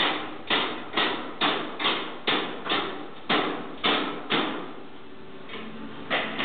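Hammer blows, about two a second, each sharp with a short fade, breaking off about four and a half seconds in before one more blow near the end.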